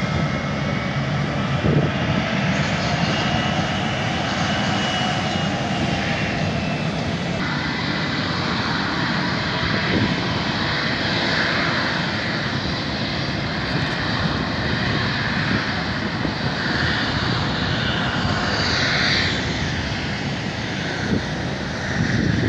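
Jet airliner engines running: a steady rush, with a faint high whine through the first several seconds.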